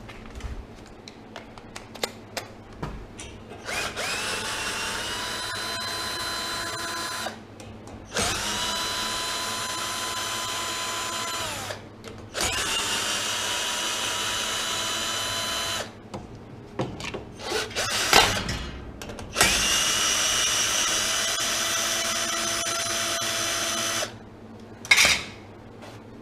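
Cordless drill-driver fitted with a 7 mm socket, running in four bursts of a few seconds each, each spinning up quickly to a steady whine as it backs out bolts. Clicks and knocks of handling come between the runs, with a sharp knock near the end.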